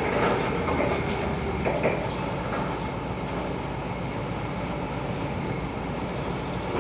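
Forklift engine running steadily as the forklift drives off, with a couple of short knocks or rattles in the first two seconds.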